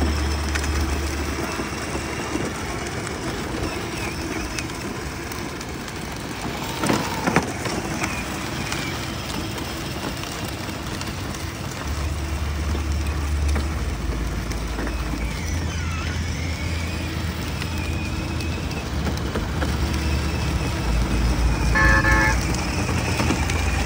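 Battery-powered ride-on toy car driving, its electric motor and plastic wheels running over concrete amid outdoor traffic noise. A short electronic beeping tone comes near the end.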